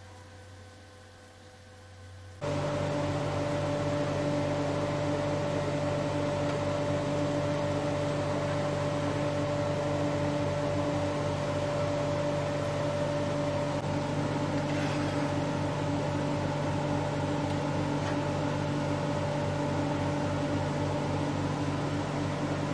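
Charnwood W821 midi lathe's variable-speed DC motor running, a steady hum with a whine. About two seconds in the sound jumps abruptly louder and then holds steady.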